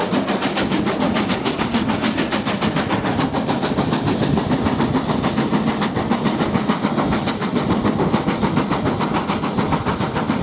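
Steam-hauled passenger train running at speed, heard from an open carriage window: a loud, continuous rush of wheel and rail noise with a fast, even beat throughout.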